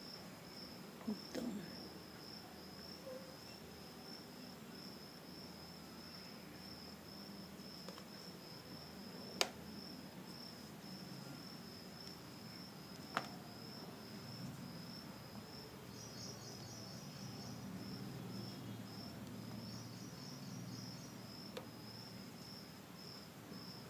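A cricket chirping faintly in rapid, evenly spaced high-pitched chirps, twice joined by a denser second chirping in the second half. Two sharp clicks stand out, about nine and thirteen seconds in.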